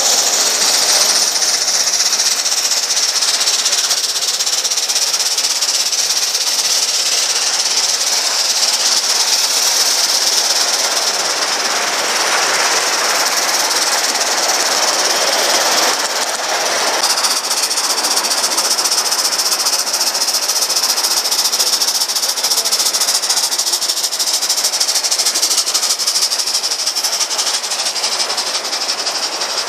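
Gauge one live steam model train running: a loud, steady hiss with the rattle of the passenger cars' wheels rolling on the track.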